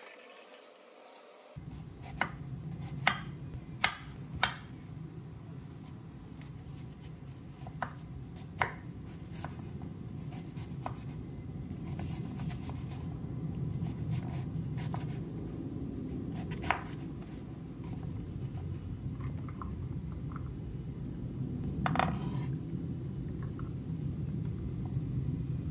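Kitchen knife chopping an onion on a wooden cutting board: sharp, irregular knocks of the blade on the board over a steady low hum.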